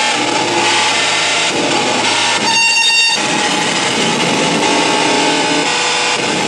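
Harsh noise music played live: loud, dense distorted noise over a steady low hum. About two and a half seconds in, the low end drops away for under a second while a shrill high whistling tone cuts through, then the full noise returns.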